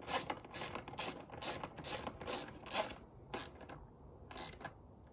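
Ratchet wrench clicking as it tightens a side number-plate bolt on a dirt bike, about two or three clicks a second, thinning out after about three seconds as the bolt snugs down.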